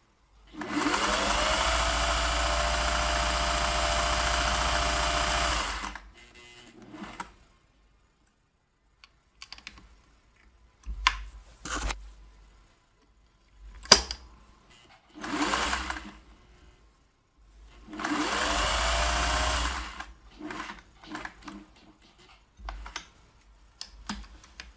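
Singer 401A sewing machine stitching a pattern-stitch row: the motor spins up and runs steadily for about five seconds, then stops. A few sharp clicks follow, then the machine runs twice more, first briefly and then for about two seconds.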